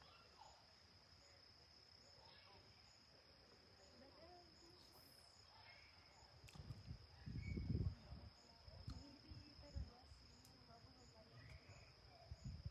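Steady high-pitched trill of insects, likely crickets, in a quiet lakeside background. A few low rumbles, such as wind on the microphone, come about halfway through.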